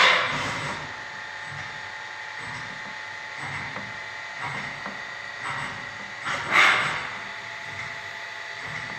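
FANUC Robodrill T21iD vertical machining centre running, with a steady high whine and soft swells about once a second. A brief loud burst of noise comes about six and a half seconds in.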